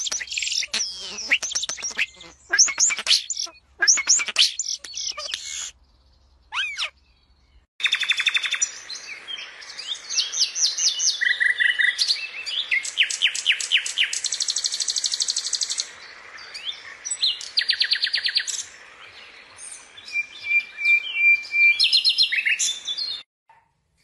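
A European starling singing for the first six seconds: a jumble of whistled slides and clicks. After a short pause, a common nightingale sings phrase after phrase of fast repeated notes and rattling trills, each phrase broken off by a brief pause.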